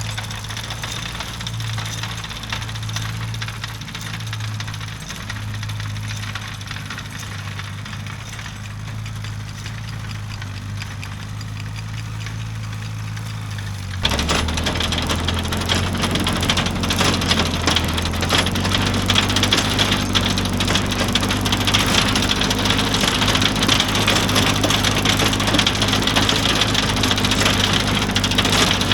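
Antique farm tractor engine running steadily. About halfway through, a louder, dense clattering and rattling starts as the manure spreader runs, and the engine note drops a little.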